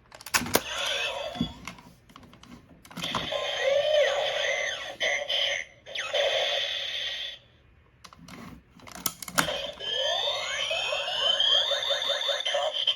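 Simplified Kamen Rider Kabuto belt toy playing its electronic sound effects through a small speaker, in several bursts of a few seconds each with plastic clicks between them. The last burst is full of sweeping rising and falling electronic tones.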